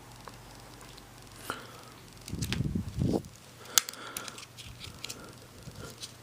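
Handling noise from a small tool set and its case: a dull rustle and knock about two seconds in, then a sharp click and a few lighter scattered clicks of small tool pieces.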